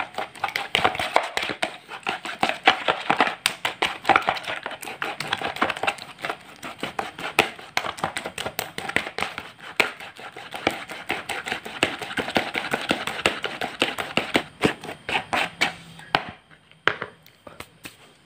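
Bare hand squishing and kneading grated taro and a raw duck egg in a plastic bowl: rapid wet squelching and slapping that stops about sixteen seconds in, leaving a few scattered clicks.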